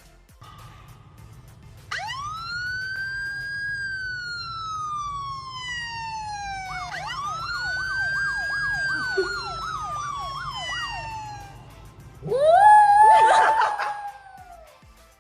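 An emergency siren wails, rising and then slowly falling. It wails again and switches to a fast warbling yelp. Near the end a louder, rougher tone rises and falls once.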